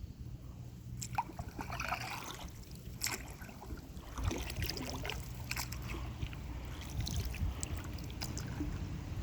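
Kayak paddle dipping into the water, with irregular splashes and trickles from the strokes over a low steady rumble.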